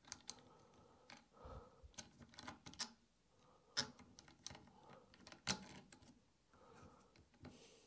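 Faint, scattered small clicks and soft rustling as hands handle the limit-switch wire and fit it into a slot on the CNC carriage's plates, with the sharpest click about five and a half seconds in.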